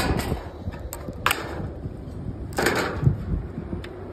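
Thin sheet metal of a roofing ridge cap being worked with a hand tool: a few sharp clicks and crinkling rattles of the sheet, the longest about two and a half seconds in, then a dull knock.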